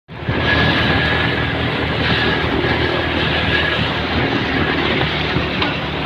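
Motorcycle engine running steadily while riding.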